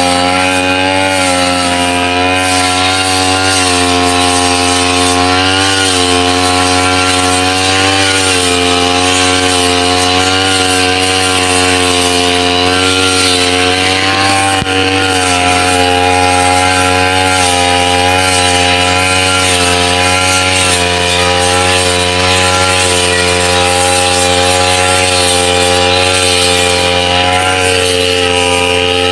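Backpack brush cutter engine running steadily at high speed while its metal blade cuts tall wet grass. The engine note dips and recovers slightly every few seconds as the blade takes the grass.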